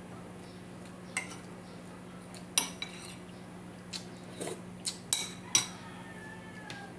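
Spoon and fork clinking against a bowl and plate while eating, about eight sharp clinks with a short ring, the loudest a little before the middle and about two-thirds through.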